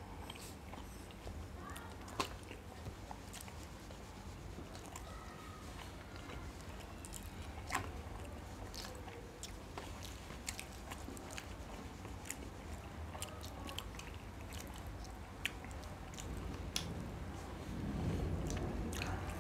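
Two people quietly chewing and eating soft, syrup-soaked gulab jamuns, with soft mouth sounds and occasional sharp little clicks.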